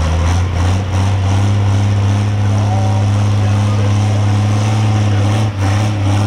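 Pro stock pulling tractor's turbocharged diesel engine running hard at high, steady revs under load during a pull, with a brief dip about five and a half seconds in.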